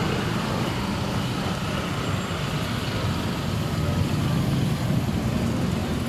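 Steady road traffic, with passing vehicle engines running in a continuous low rumble.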